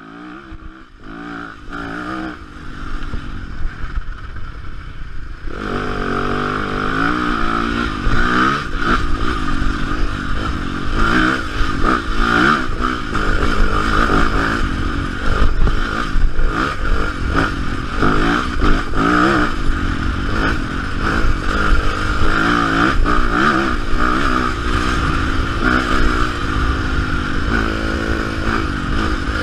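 Yamaha dirt bike engine running under way, its pitch rising and falling as the rider works the throttle and gears. It is quieter for the first few seconds and gets louder about five seconds in.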